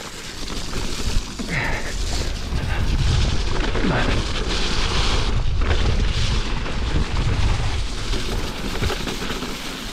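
Mountain bike ride noise: a deep rumble of wind buffeting the microphone, mixed with tyres rolling over a wet dirt trail and the bike rattling over bumps. It grows louder over the first few seconds as the bike picks up speed.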